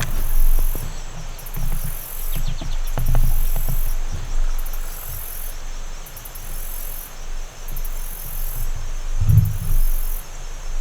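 Insects chirping in a steady pulsing rhythm, about one burst a second, over a low, uneven rumble.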